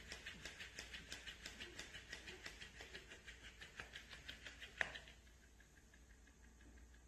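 Faint, rapid, evenly spaced light clicking on a tile floor, about four clicks a second, with one sharper click near the five-second mark, after which it fades away.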